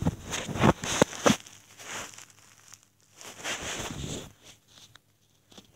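Handling noise: rustling and scraping with several sharp knocks in the first second and a half, then a stretch of scraping, dying away near the end.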